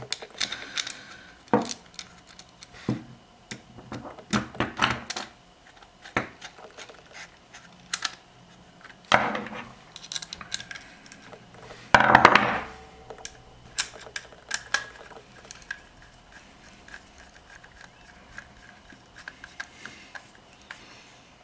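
Small metal parts and screws clicking and clinking as they are handled while the cover is fitted onto a pressure switch and its screws are started. There are louder knocks and scrapes about 9 and 12 seconds in.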